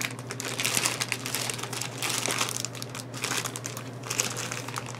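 Clear plastic packaging bag crinkling and rustling as a wrapped fabric storage bin is handled, in irregular crackles.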